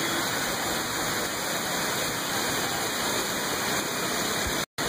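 Heavy monsoon rain pouring steadily: a dense, even hiss that cuts out for a moment near the end.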